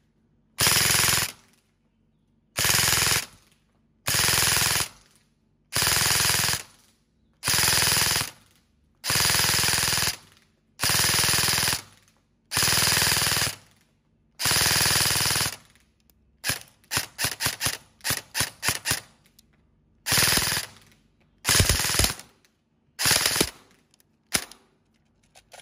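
Upgraded E&C 603 electric airsoft rifle (AEG), tuned to about 500–550 fps with ATS 16:1 gears and an ATS M140 motor, firing on full auto in short bursts of just under a second each, about nine in a row. A run of about a dozen quick single shots follows, then four more short bursts near the end.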